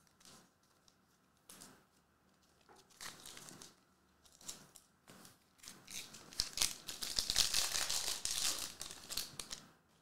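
Foil Prizm trading-card hobby pack being torn open and crinkled by hand: a few short crackles at first, then a long run of dense crinkling in the second half.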